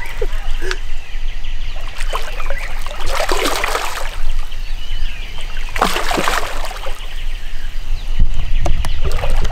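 Water splashing and sloshing in bursts, about three seconds in and again near six seconds, as a large hooked carp is fought and brought to the landing net, over a steady low rumble.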